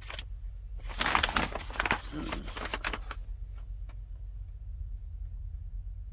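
Paper rustling and crinkling for about two seconds, with a few faint clicks after it, over a steady low hum.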